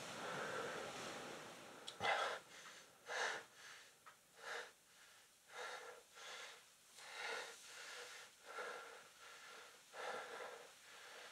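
A young man breathing hard: a run of quick, noisy breaths in and out, roughly one every half second to a second. Before the breathing starts there is a steady faint hiss and a short click about two seconds in.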